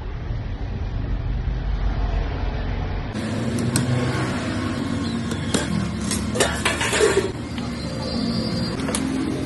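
Street traffic rumble, then a run of sharp metal clinks and knocks from cooking utensils on metal, bunched between about four and seven seconds in with one more near the end.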